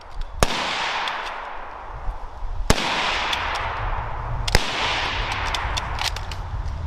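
.303 Lee Enfield bolt-action rifles firing in rapid succession: three loud shots about two seconds apart, with fainter sharp cracks between them, each shot trailing off in a long echo.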